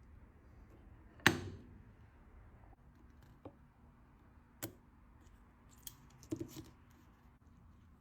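Small metal watch parts and hand tools clicking and tapping during watch repair: one sharp click about a second in, then a few lighter taps, with a short cluster near the end.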